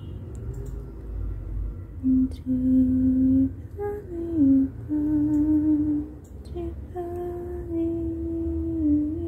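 A woman humming a slow tune without words, holding each note and sliding down between some of them.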